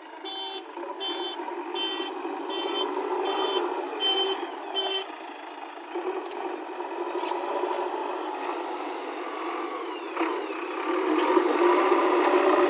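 JCB 3DX backhoe loader's reversing alarm beeping about eight times, roughly one and a half beeps a second, over its diesel engine running. The beeping stops about five seconds in, the engine runs on, and it gets louder near the end.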